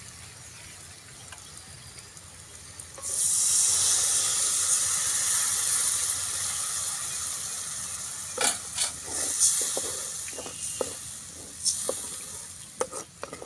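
Tamarind water poured into a hot kadai of fried masala, setting off a sudden loud sizzle about three seconds in that slowly dies down. Near the end a wooden spatula stirs, knocking and scraping against the metal pan.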